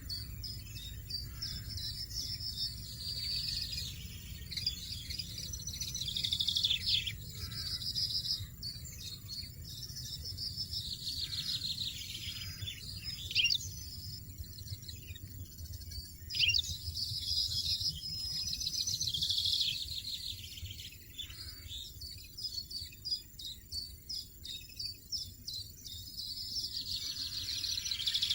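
European goldfinches twittering in bouts of quick high trills and short falling notes, over a steady low rumble.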